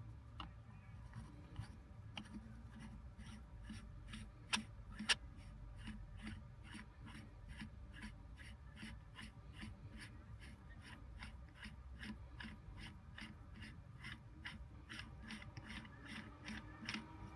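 A steady run of small, faint mechanical clicks, about three a second, as the aftermarket shifter is screwed onto its threaded adapter on the gear lever, with two louder knocks about four and five seconds in.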